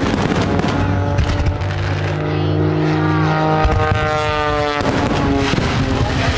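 Fireworks display: pops and crackling over loud show music with held notes that change pitch every second or two.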